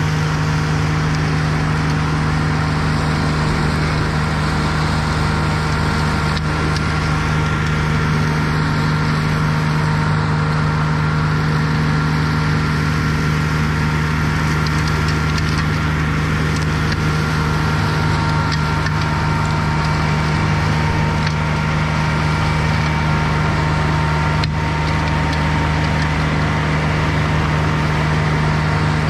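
Irus Deltrak 2.5 tracked slope mower running steadily under load, its engine holding one constant pitch while the front flail mulcher shreds tall grass, with scattered light ticks.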